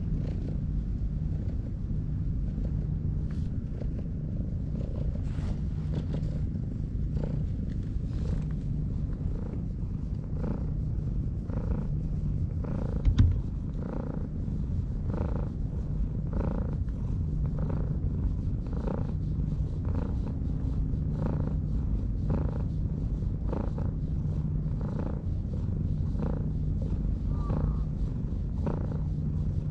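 Cat purring while being stroked: a steady low purr that pulses with each breath, about once a second. A single short thump comes about halfway through.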